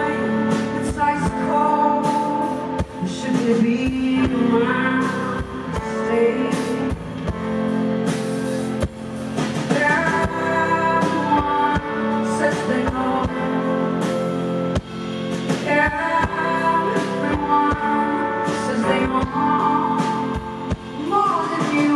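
Live band music: a woman singing into a microphone over drums and guitar.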